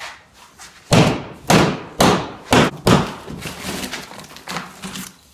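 Drywall being smashed open with heavy blows: five loud hits about half a second apart, then several lighter knocks as the sheetrock breaks up.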